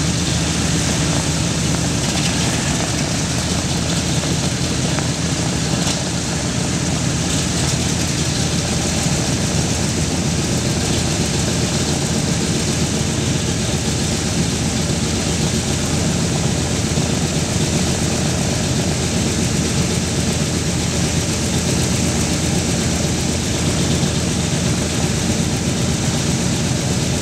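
Boeing B-17 Flying Fortress's Wright R-1820 Cyclone nine-cylinder radial engines idling steadily on the ground after start-up, with the propellers turning.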